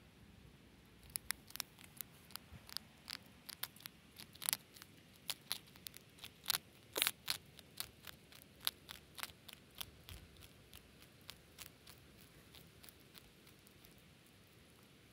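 Hedgehog chewing hard dog biscuits: irregular crisp crunches, several a second, starting about a second in and thinning out near the end.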